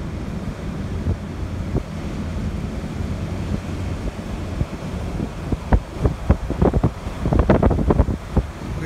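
Wind buffeting the microphone over the low rumble of a four-wheel-drive truck driving along beach sand. From about halfway through, a run of sharp, irregular thumps.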